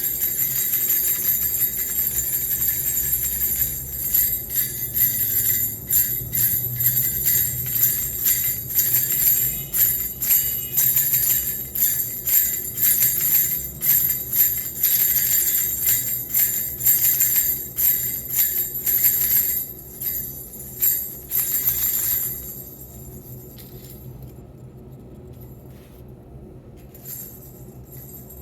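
Wooden baby rattle fitted with small metal jingle bells being shaken, a bright jingling with quick repeated shakes. The shaking stops about three quarters of the way through, leaving only faint jingling.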